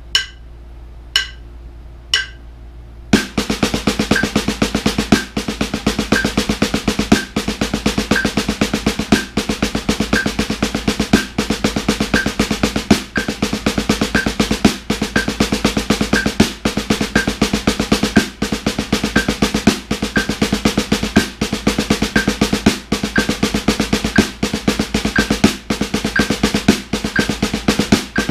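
Double-stroke rolls played with wooden drumsticks on a rubber practice pad set on a snare drum: a dense, even stream of sixteenth-note strokes that starts about three seconds in. Under the strokes a metronome clicks about once a second, and it also sounds alone at the start.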